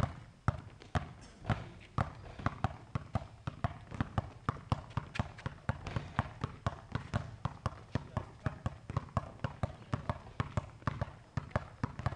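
Two basketballs dribbled at the same time on a concrete court: a quick run of sharp bounces, a couple a second at first and then faster and denser from about two seconds in.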